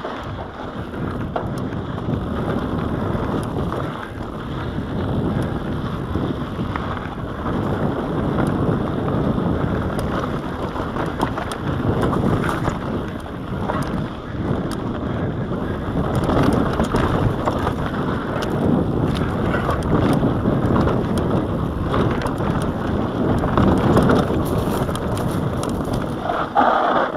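Mountain bike riding fast down a dirt singletrack: a steady rush of tyre noise on the dirt with wind buffeting the handlebar-mounted camera's microphone, and scattered knocks and rattles of the bike over bumps. The noise falls away right at the end as the bike comes out onto flat ground.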